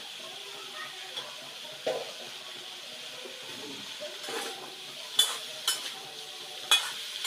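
Vegetables and leafy greens sizzling in a metal wok as a metal slotted spatula stirs and turns them, with several sharp clinks of the spatula against the pan, most of them in the second half.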